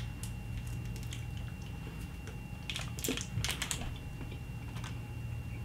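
Faint wet chewing of a piece of liquid-centre sour chewing gum, with a few soft clicks and crackles about three seconds in, over a steady low room hum.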